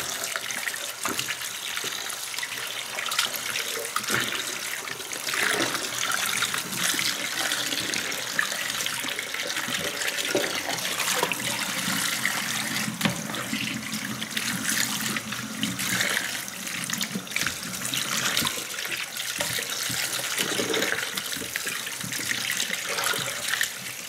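Kitchen tap running into a bowl in a stainless-steel sink, with irregular splashing as hands rub and rinse raw chicken pieces in the water and tip it out into the sink.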